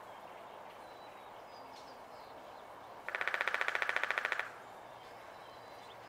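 Downy woodpecker drumming on a tree trunk: one rapid, even roll of knocks lasting about a second and a half, starting about three seconds in.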